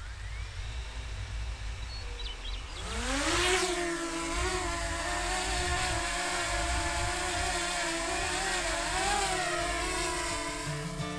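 A motor vehicle's engine revs up about three seconds in, then runs steadily at a held pitch that wavers slightly.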